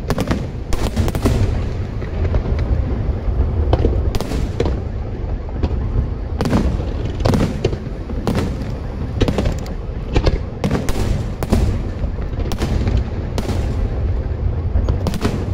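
Aerial firework shells bursting in quick, irregular succession: a dozen or more sharp bangs over a continuous low rumble.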